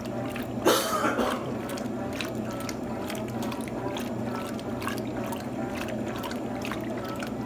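Electrolux TOP8A top-loading washing machine with water running and trickling in its tub over a steady low hum, with a brief louder splash about a second in.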